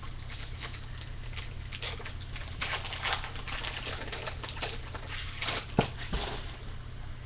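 Foil wrapper of a Bowman baseball card pack crinkling and tearing as it is ripped open and pulled apart, a dense run of irregular crackles that is loudest in the middle.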